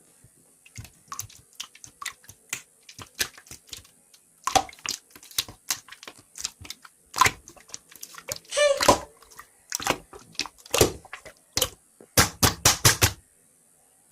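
Irregular clicking and tapping, like typing on keys, with a fast run of five or six loud clicks near the end.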